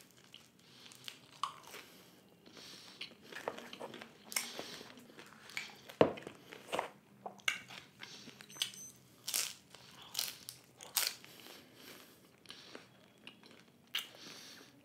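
Close-miked biting and chewing of a crunchy cheese and corn taco: irregular crisp crunches, with the sharpest crunch about six seconds in.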